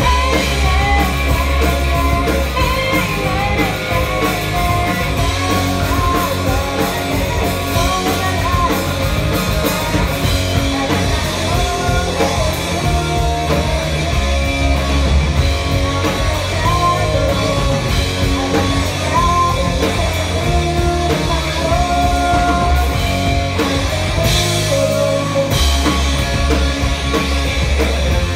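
Live rock band playing at full volume: electric guitar, bass and drum kit, with singing.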